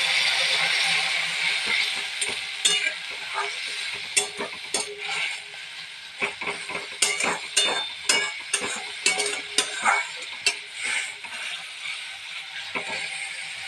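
Vermicelli with almonds and cardamom frying in ghee in a metal kadai, a steady sizzle that is loudest at the start and then fades. From about four seconds in, a metal spatula stirs and scrapes through it, knocking against the pan in quick irregular strokes.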